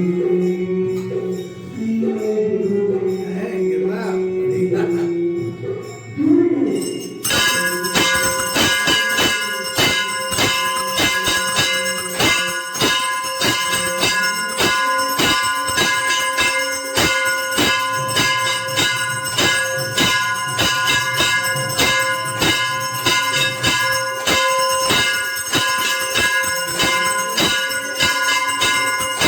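Temple aarti bells ringing, struck rapidly and without pause, starting suddenly about seven seconds in. Before that, voices chant or sing.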